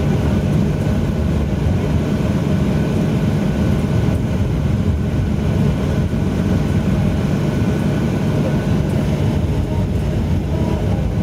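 Cabin noise inside a Boeing 737-800 rolling along the runway: a loud, steady low rumble of its CFM56 jet engines and the airframe, holding level throughout.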